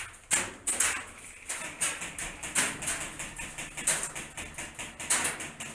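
Airsoft high-capacity magazine being wound by its thumb wheel: a run of sharp ratcheting clicks, a few a second, unevenly spaced. The mags are unoiled.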